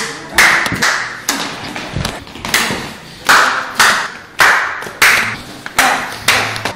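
A rapid series of punch and slap impacts in a staged fistfight, about a dozen sharp hits roughly two a second, each with a short ringing tail.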